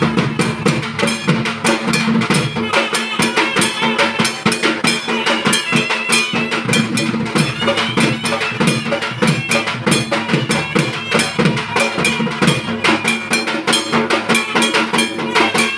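Music with fast, dense drumming and a held tone underneath.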